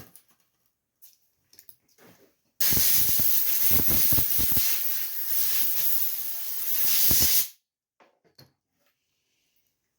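A loud, steady hiss of pressurized spray, lasting about five seconds, that starts and cuts off abruptly, with an uneven low flutter underneath.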